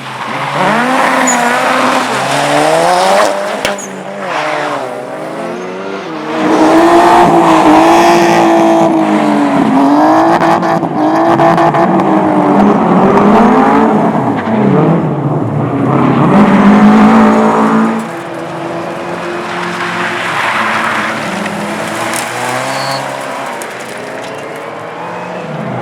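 Car engine revving hard, its pitch swinging up and down again and again, with tyres squealing. It is loudest through the middle stretch, then drops back after about eighteen seconds.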